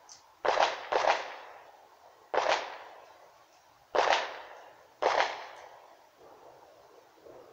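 Firecrackers going off: five sharp bangs at uneven intervals over about five seconds, each followed by a short ringing tail.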